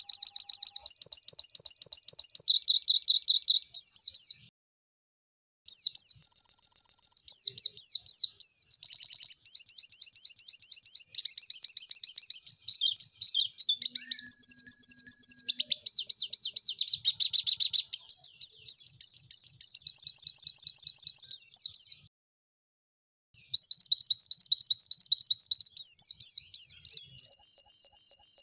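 White-eye (pleci) song: long runs of rapid, high-pitched chattering trills, broken twice by a pause of about a second, once after about four seconds and once about 22 seconds in.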